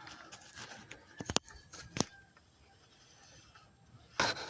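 A few sharp clicks and knocks of hand tools and metal parts being handled during work on an engine's oil filter housing, followed by a short burst of noise near the end.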